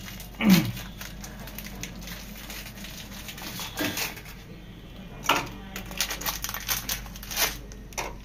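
Plastic Oreo biscuit wrapper crinkling and rustling as biscuits are pulled out of the packet, with scattered crackles throughout and one louder clunk about half a second in.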